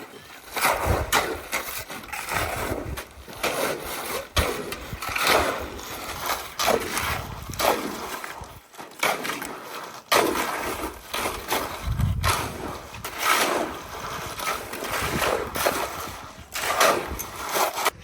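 Water splashing and sloshing in repeated irregular strokes, roughly one a second.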